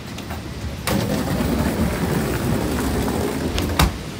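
Steady rushing roar of the open apron at an Airbus A320's front door, starting suddenly about a second in, with one sharp knock near the end.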